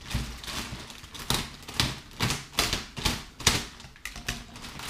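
Thin plastic packaging bag crinkling and rustling in irregular sharp crackles as it is handled and pulled open.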